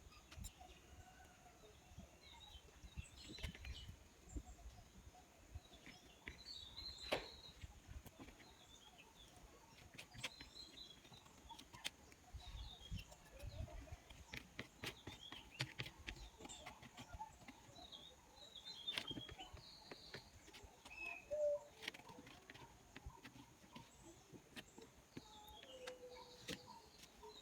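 Faint bird calls and chirps, with scattered light clicks and taps.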